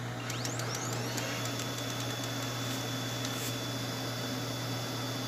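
Brother HL-L6400DW laser printer starting a print job: a motor spins up with a rising whine about half a second in, then holds a steady high whine over a low hum and the printer's even running noise.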